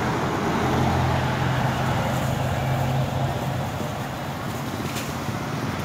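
Road traffic: a passing motor vehicle's engine gives a low steady hum over a continuous rushing noise, easing in the second half.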